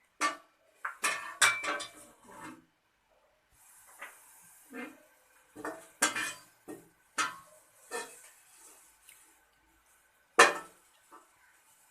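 A metal spoon clinking and scraping against a metal cooking pot in a series of irregular knocks, the loudest near the end. A faint hiss runs for a few seconds midway as green cardamom goes into the hot oil.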